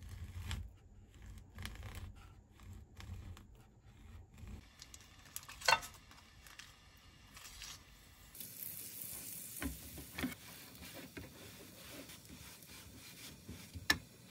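Kitchen cooking sounds: utensils clicking and knocking, with one sharp clack about halfway through, then from about eight seconds in a steady sizzle of food frying in a pan, with a few more clinks.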